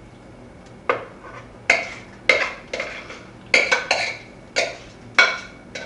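A spoon knocking and scraping inside a stainless steel pot while macaroni and cheese is scraped out into a baking dish. The sharp strikes start about a second in, roughly ten of them at uneven intervals, each ringing briefly.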